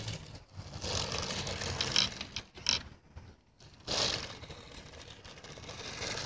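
Radio-controlled Associated SC10 short course truck converted into a snowmobile, its motor and paddle tires spinning on snow in bursts of throttle. It drops out briefly about half a second in and again for about a second around the middle.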